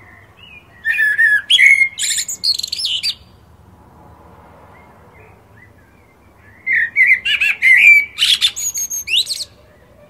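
Eurasian blackbird singing two song phrases a few seconds apart. Each phrase is a low warble that breaks into a run of high, quick twittering notes.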